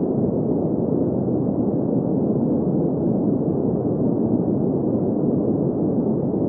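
Steady green noise: an even, unchanging rushing sound, strongest in the low-middle range with no high hiss at all.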